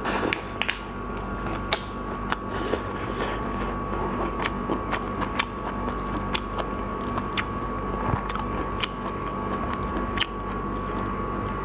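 Prawn shell being peeled by hand: scattered sharp cracks and clicks as the shell breaks away, over a steady background hum.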